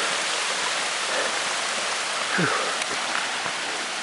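Creek water rushing in a steady, even hiss.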